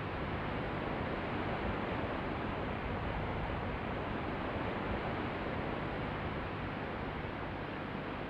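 Steady hiss and rumble of a looped background-noise track played back and re-recorded on an open microphone, with a faint low hum underneath.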